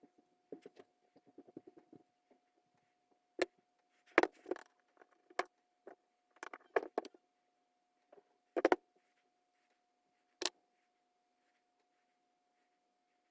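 Sharp clicks and knocks of small parts being handled, irregular and a second or two apart, over a faint steady tone.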